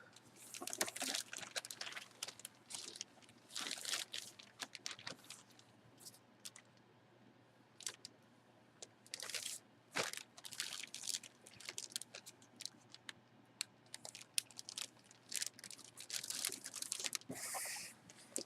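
Irregular crinkling, rustling and clicking of plastic and cardboard packaging being handled, in scattered short bursts with a quieter stretch in the middle.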